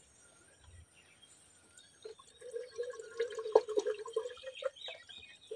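Water poured from a bottle into a car's windscreen washer reservoir, glugging unevenly from about two seconds in until near the end.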